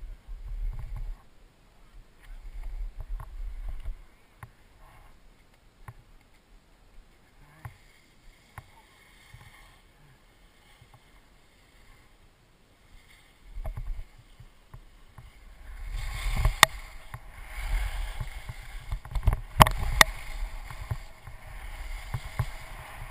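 Skis hissing and scraping over packed snow at speed, with wind buffeting the microphone in low rumbles. It is quieter through the middle, then grows louder and faster in the last several seconds, with a few sharp clacks from the skis.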